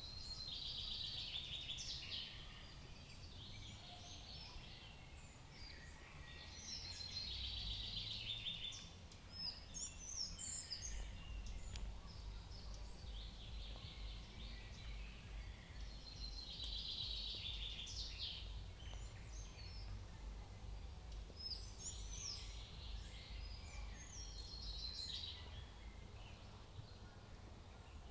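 Songbirds singing in woodland, with short trilled song phrases repeating every few seconds over a steady low rumble.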